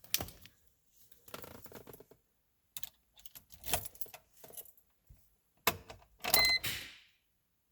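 Car keys on a ring jangling and rattling in irregular bursts with a few sharp clicks. A short high beep sounds about six seconds in.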